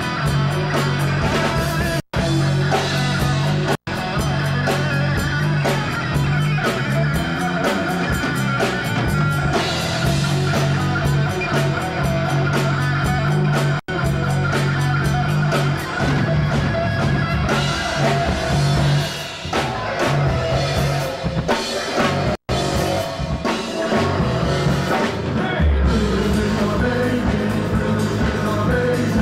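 Three-piece rock band of electric guitar, electric bass and drum kit playing a rock song live. The sound cuts out for an instant four times.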